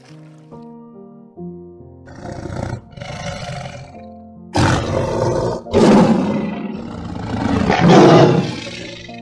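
Big cat roaring in five rough calls, growing louder, with the last three the loudest, over soft background music.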